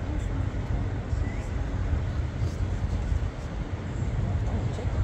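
Outdoor stadium ambience: a low, uneven rumble of wind on the microphone over a steady crowd murmur, with a few faint clicks.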